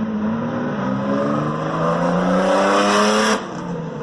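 Vehicle engine accelerating hard as it pulls away, rising in pitch for about two and a half seconds, then dropping off suddenly near the end as the throttle closes.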